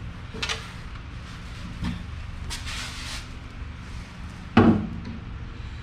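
A few knocks and clatters like cupboard doors or a door being opened and shut, with a brief scraping rustle near the middle and a loud thump about four and a half seconds in, over a steady low hum.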